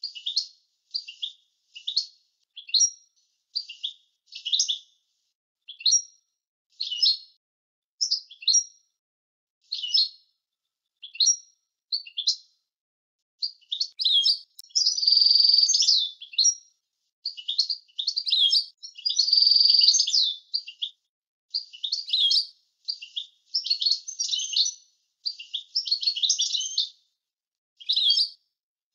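European goldfinch singing: single chirps spaced about a second apart for the first dozen seconds, then a run of fast twittering song with two long held notes in the middle. A clean song recording with no background noise between the notes, of the kind used to tutor young goldfinches.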